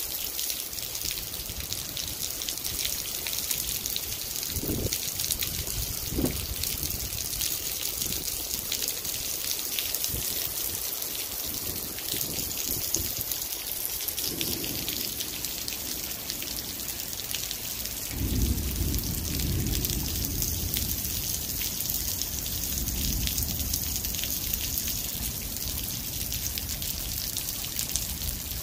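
Heavy rain falling on wet pavement: a steady hiss full of the patter of individual drops. About two-thirds of the way in, a low rumble joins it and carries on.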